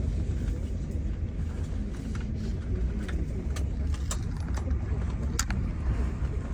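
Steady low rumble of a tour bus's engine and road noise, heard from inside the coach. A few short sharp clicks or rattles come through in the middle.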